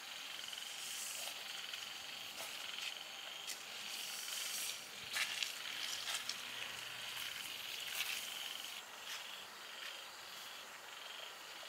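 Steady high chorus of night insects and frogs, pulsing in the second half, with scattered rustles and footsteps as someone steps out of a tent and walks off.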